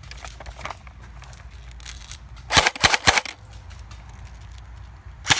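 Airsoft gun firing: a quick cluster of about four sharp cracks about two and a half seconds in, then a single crack near the end.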